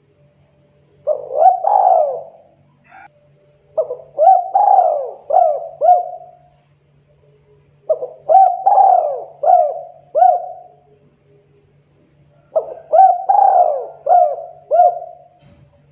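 Spotted dove cooing: four phrases, each a run of several quick, mellow coos lasting a couple of seconds, with short pauses between them.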